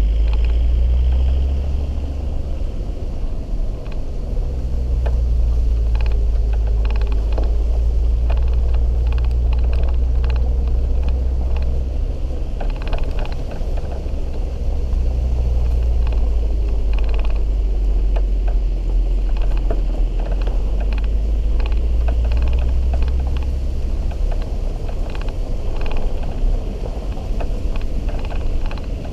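Off-road vehicle's engine running steadily at low speed as it drives along a rutted dirt forest track, a low rumble with frequent knocks and rattles as it bumps over the ruts. The engine note eases about halfway through.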